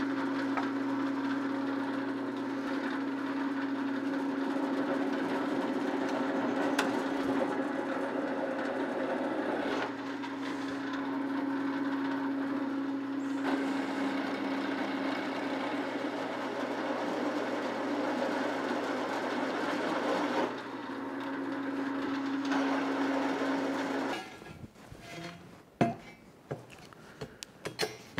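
Drill press running with a steady motor hum while a 5/8-inch twist drill bores through steel plate, the cutting noise changing in level a few times. The press stops about 24 seconds in, followed by a few clanks.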